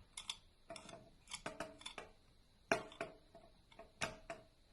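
Irregular light clicks and taps of a film spool being worked down into the spool seat of a Voigtländer Bessa 46 camera, about a dozen in all, as it is pushed and turned until it sits fully in.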